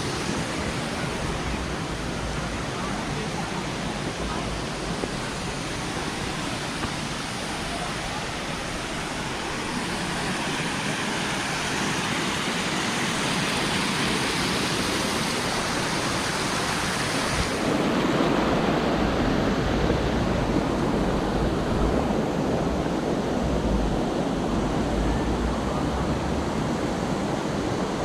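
Steady rush of flowing and falling water from a stream and waterfall. Just over halfway through it changes abruptly, losing its highest hiss and becoming fuller and deeper.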